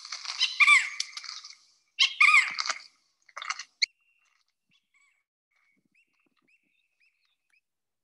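Recorded call of a squirrel cuckoo: two harsh, high calls with a downward-bending note in the first three seconds, a shorter third call, then a few faint short notes.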